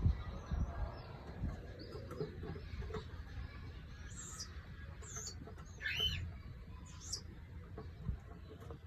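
Cockatiels giving a few short, high chirps in a cluster partway through, the loudest one falling in pitch, over faint low bumping.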